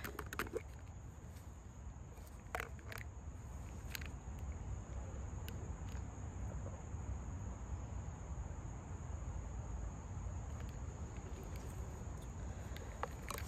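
Insects in summer woods making a steady, high, continuous drone, with a low rumble underneath and a few faint clicks a few seconds in.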